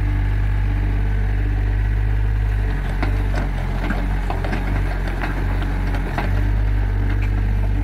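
Tracked excavator's diesel engine running steadily; from about three to six seconds in the engine note drops and roughens as it takes hydraulic load, with a handful of sharp knocks.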